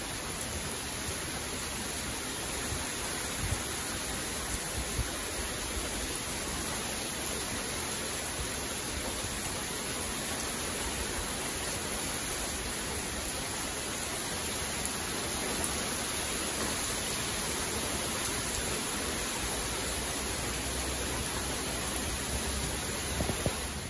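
Heavy thunderstorm rain pouring steadily onto garden foliage and ground, a dense, even hiss with a few brief louder ticks.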